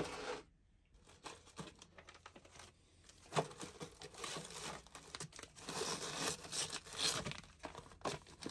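Plastic vacuum-seal bags of salmon steaks crinkling and rustling in irregular bursts as the packs are pushed and stacked onto a freezer's wire shelf, starting about three seconds in. A single sharp click at the very start, as the freezer door is opened.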